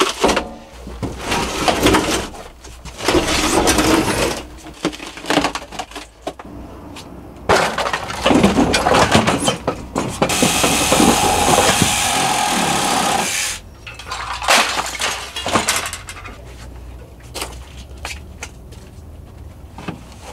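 Cracking, crunching and scraping of an old Dometic RV absorption fridge's foam-insulated aluminium cabinet as it is torn apart and shoved out through the camper door. About halfway through, a steady rushing noise lasts roughly three seconds.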